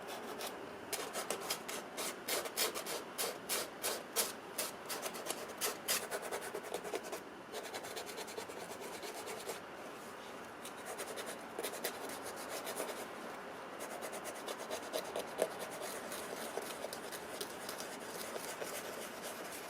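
Sandpaper rubbed back and forth by hand over a sneaker's leather upper, scratching it down flush. Quick strokes, about two or three a second, for the first several seconds, then steadier rubbing.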